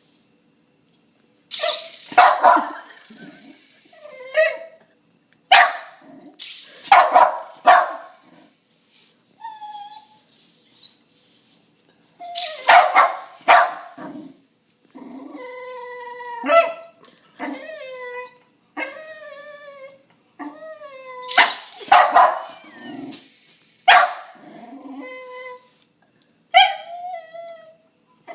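A dog barking in loud, scattered bursts, with high, wavering whines and yips between them, many sliding down in pitch.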